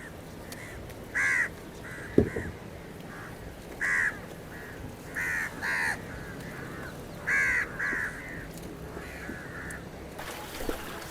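Crows cawing repeatedly, with short harsh calls singly and in pairs. A single sharp knock comes about two seconds in.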